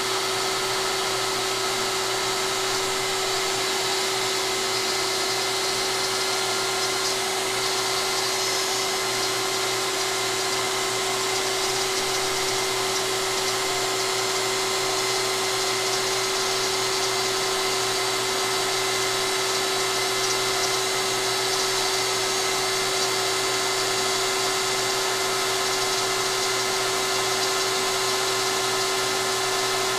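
DeWalt compact router on a LowRider CNC running a steady high-pitched whine while it cuts into a sheet and the gantry carries it along the table.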